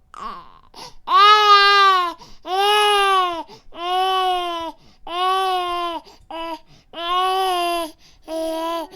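Infant crying: a steady run of wails, each about a second long with a short catch of breath between, about seven in all.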